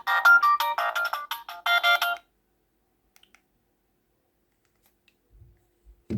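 A mobile phone ringtone playing a fast melody of short, bright notes, about six a second, which cuts off about two seconds in. Near silence follows, then a single short low thump at the very end.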